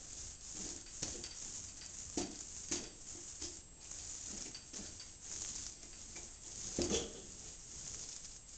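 Paint roller on an extension pole being worked in a paint bucket and its screen: irregular wet, scratchy strokes and light knocks, with a louder one about seven seconds in.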